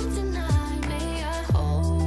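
Background song with a steady beat: sustained bass, a melody line, and a deep kick drum that sweeps down in pitch, landing twice.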